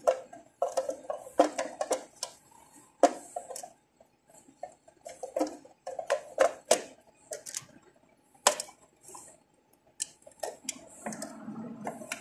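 Clear plastic thermostat guard cover being pressed into place over a wall thermostat by hand: irregular plastic clicks, taps and rattles, a few of them sharp knocks.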